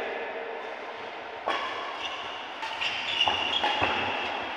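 Badminton rally: sharp racket strikes on a shuttlecock, the first about one and a half seconds in, with court shoes squeaking on the court mat, echoing in a large sports hall.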